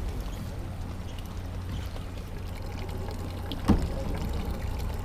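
Motorboat engine running steadily with water splashing against the hull, and a single sharp knock about three and a half seconds in.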